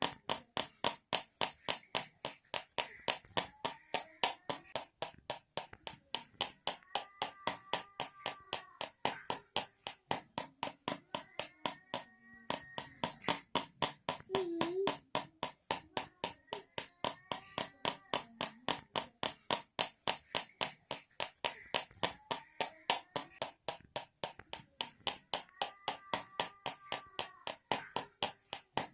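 Homemade rattle of two tins clicking in an even rhythm, about three to four sharp clicks a second.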